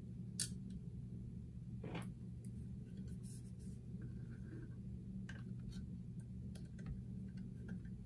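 Scattered small clicks and scrapes of a Phillips screwdriver working a small screw into a 2.5-inch SSD through its plastic laptop drive caddy, the screw being started and made to catch its thread, over a steady low hum.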